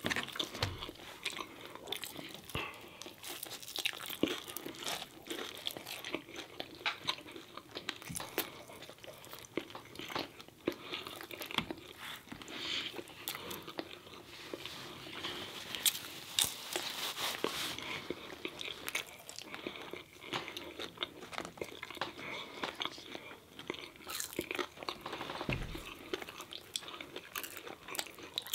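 Eating crispy fried food: crunching bites and chewing of breaded fried chicken and battered fried fish, with many small sharp crackles as the crust breaks and is torn apart.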